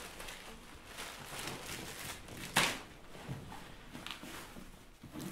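Plastic shopping bags rustling and crinkling as things are taken out of them, with one sharp, louder crinkle about halfway through.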